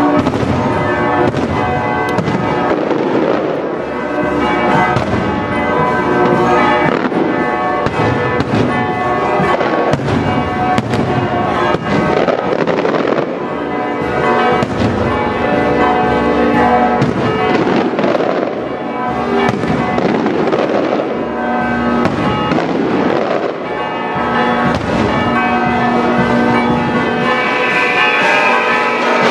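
Continuous barrage of daytime aerial fireworks, with many bangs in quick succession overhead. Church bells ring throughout.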